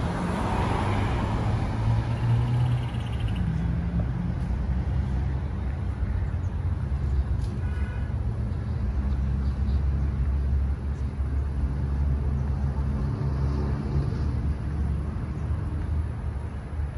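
A car drives past on the road near the start, its tyre hiss fading away, over a steady low rumble of road traffic. A brief high chirp comes about halfway through.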